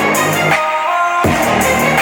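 Hip hop track with a heavy bass line playing at full volume through a portable Bluetooth speaker. The bass drops out for about half a second in the middle, then comes back in.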